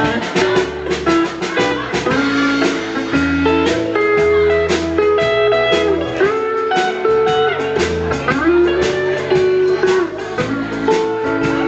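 Live band playing an instrumental passage: strummed acoustic guitar and electric guitar over drums and deep bass notes, with a lead line of long held notes that bend up in pitch.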